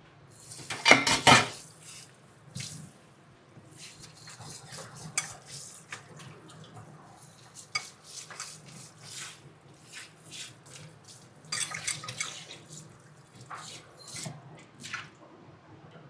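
Water from a kitchen tap running into the sink in two short spells, the louder about a second in and another near twelve seconds. Between them, pots, dishes and utensils clink and knock, over a low steady hum.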